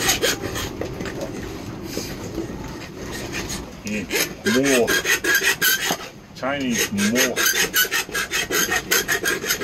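Hand file rasping back and forth on a small metal sail track slide, filing it down so it will fit the mast track. Quick, even strokes, faster and louder in the second half at about three or four a second.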